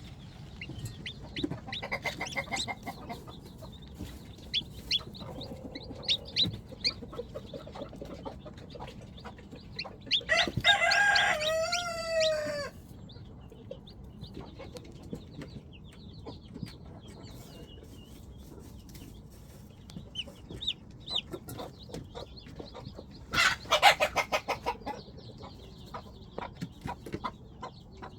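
Chickens clucking, with a rooster crowing once about ten seconds in, a long call that falls in pitch at its end. A loud burst of rapid short calls comes near the end.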